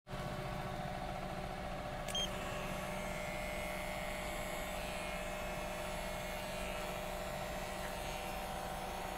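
Electric hair clipper running with a steady hum as it is worked over a comb, cutting hair. A brief sharp sound about two seconds in.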